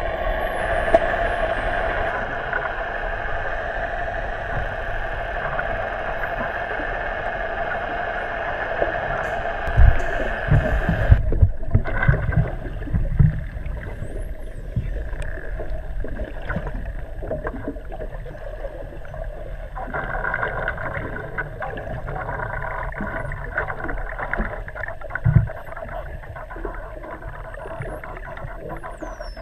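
Underwater drone of a boat's motor heard through the water, steady and fixed in pitch, changing abruptly about eleven seconds in, with a few low thumps. Faint high rising and falling whistles from common dolphins come through now and then.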